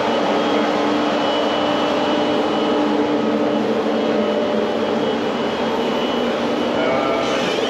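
A loud, steady machine noise: an even rush with a few faint steady tones running through it.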